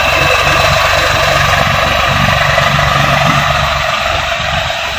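Farm tractor diesel engines running loudly and steadily as the tractors work stuck in deep paddy mud.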